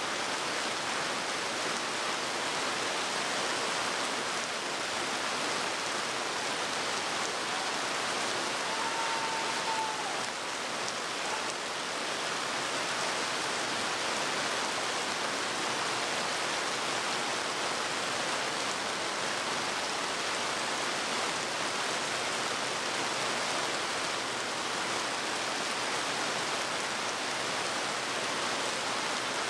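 Heavy rain falling steadily, an even hiss of downpour on a paved parade ground. A faint short tone sounds briefly about nine seconds in.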